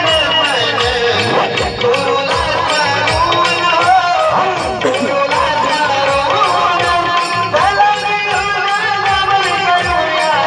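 Konkan naman folk song performed live: voices singing a melody over a steady percussion beat of drum strokes and hand cymbals, about two and a half beats a second.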